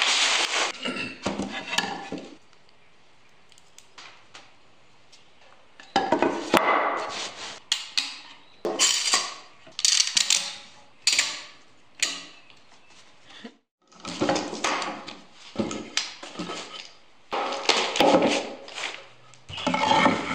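Stiff paper rustling as it is unrolled over a bench, then repeated bouts of clattering and clicking as wooden strips are handled and bar clamps are tightened on a glue-up.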